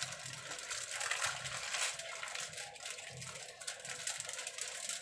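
Aluminium foil crinkling and crackling in irregular little bursts as hands roll and press it tightly around a raw meat roll.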